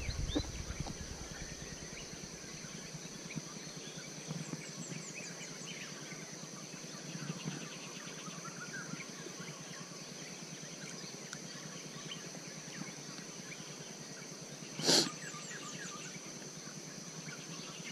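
Quiet riverside ambience at dawn: faint scattered bird calls over a steady high-pitched insect drone. About fifteen seconds in, there is one short, sharp, louder sound.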